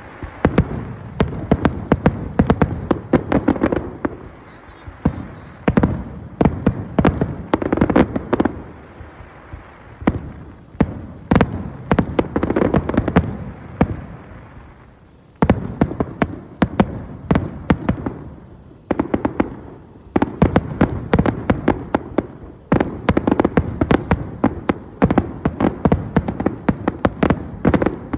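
Fireworks display: aerial shells bursting in a rapid, dense barrage of overlapping bangs. The barrage thins out about halfway through, then starts again suddenly and keeps up to the end.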